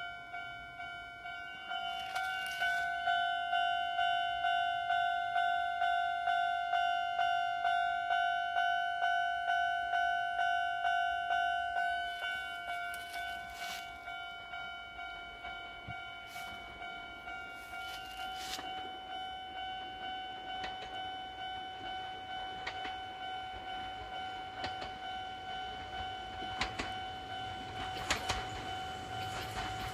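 Japanese level-crossing warning bell, the electronic ding-ding of the crossing alarm, ringing at about two strokes a second. It starts suddenly, becomes quieter about twelve seconds in, and signals an approaching train. Near the end the clicks of the oncoming train begin to be heard.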